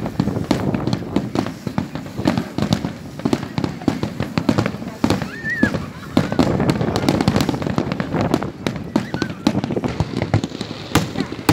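Aerial fireworks display: a dense, irregular run of bangs and crackles from shells bursting overhead.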